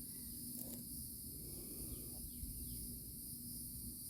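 Quiet background: a steady high hiss and a low hum, with a few faint, soft scratches and taps.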